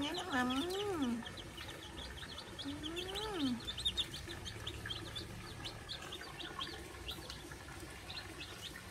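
Young chicks peeping continuously, many short high peeps several times a second while they eat from a feed tray. In the first second and again around three seconds in, a lower voice gives a few rising-and-falling calls over the peeping.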